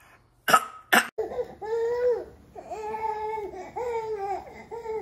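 A baby crying and fussing in a string of short, even wails, each under a second long. Two short sharp smacking sounds come just before, about half a second and one second in.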